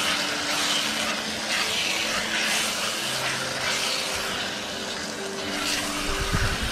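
Onion-tomato masala with chilli and pepper powder sizzling in hot oil in a pressure cooker while a wooden spatula stirs and scrapes it in repeated strokes. There is a dull knock near the end.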